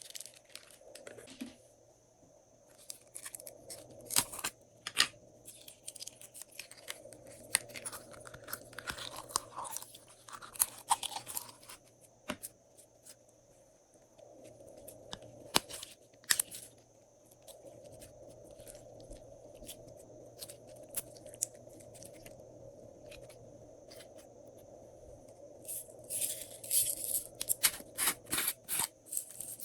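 Glossy slime being squeezed and mixed by hand, making sticky clicking and crackling in bursts, densest near the end, over a faint steady hum.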